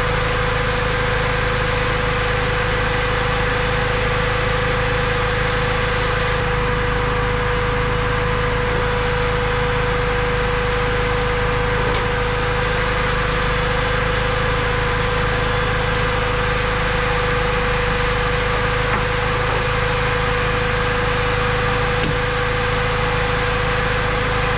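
Toyota 2AR four-cylinder engine idling with the AC compressor engaged while the system is charged with R134a: a steady hum with a constant mid-pitched whine. At idle the compressor is turning slowly, which the owner thinks may be holding the pressures below spec.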